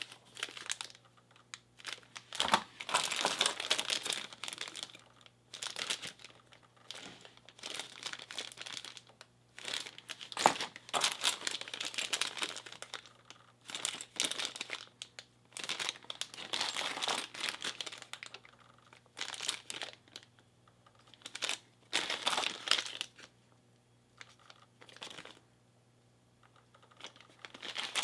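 Plastic bag of key blanks being handled: crinkling in repeated irregular bursts with short pauses between, and a few sharp clicks.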